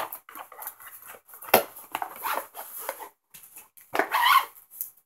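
Items and their packaging being handled on a table: irregular rustling and light knocks, with a sharp click about a second and a half in and a louder rustle near the end.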